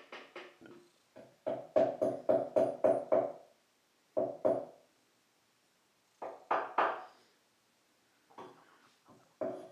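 Music of single pitched notes that each die away, played in short phrases with gaps, including a quick run of repeated notes about a second and a half in.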